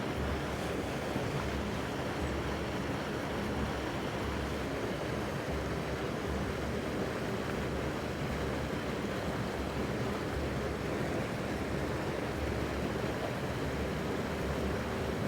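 Steady rushing of flowing water, with wind buffeting the microphone in low gusts.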